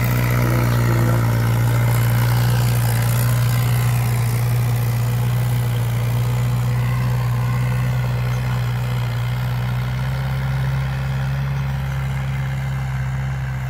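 Mahindra 575 tractor's diesel engine running steadily with a constant low hum while it pulls a rotavator tilling dry, cloddy soil, growing gradually fainter as the tractor moves away.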